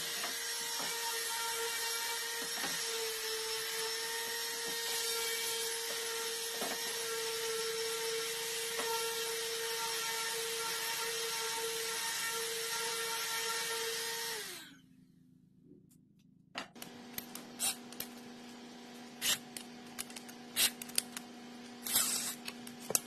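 Corded orbital sander running steadily against plywood, its motor then winding down and stopping about two-thirds of the way through. After a short pause comes a quieter steady hum with scattered sharp clicks and knocks.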